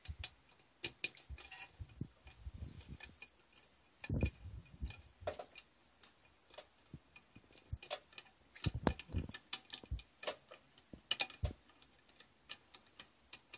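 Irregular light metallic clicks and ticks from a T20 Torx bit screwdriver backing a screw out of an automatic-transmission valve body's spring-loaded end plate, along with the tool and the metal parts being handled.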